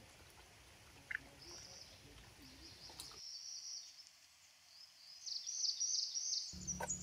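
Small birds chirping and twittering in quick high-pitched runs, faint at first and louder near the end.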